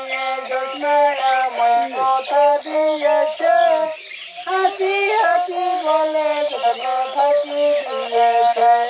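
Banam, a Santal bowed folk fiddle, playing a melody in short held notes that step and slide between pitches, with a brief break about four seconds in.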